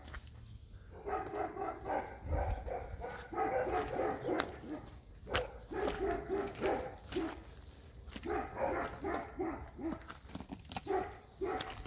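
A dog barking and whining in runs of short, repeated calls.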